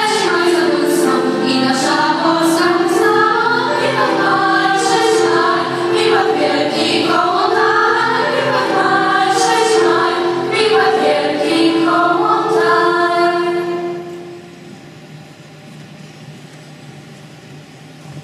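A girls' choir singing a song in unison and harmony; the singing ends about fourteen seconds in, leaving only quiet room noise in the hall.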